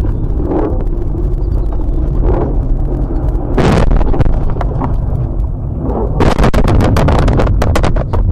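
Car crash heard from an in-car dash camera: steady road rumble, a loud bang about three and a half seconds in as the car leaves the snowy road, then a rapid clatter of knocks and bangs from about six seconds in as it tumbles.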